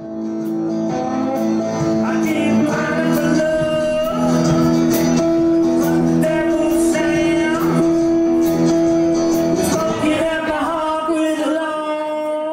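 Live band music: a lap steel guitar holding long sustained notes and sliding between pitches over a drum kit, with a male voice singing.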